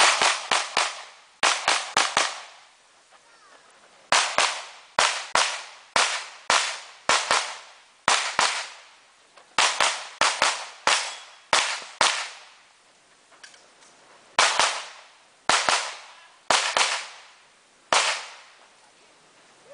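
Pistol shots, about thirty, fired mostly in quick pairs in several fast strings with short pauses between, each shot ringing briefly; the last one falls near the end.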